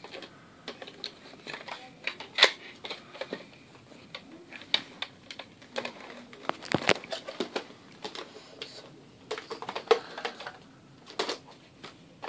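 Small plastic toy pieces being handled, giving irregular clicks and taps, with a few louder knocks.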